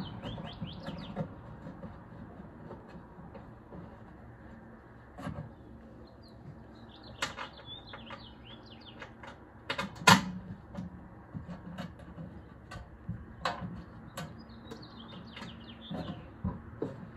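Scattered metallic clinks and knocks of hand tools and 1/4-inch bolts against a steel battery box as it is bolted down, the loudest knock about ten seconds in. Small birds chirp in the background now and then.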